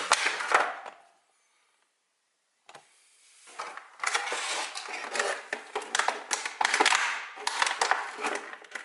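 Microphone packaging being handled and unwrapped: crinkling, rustling and small clicks, dropping to dead silence for about a second and a half near the start before the crinkling resumes and runs on densely.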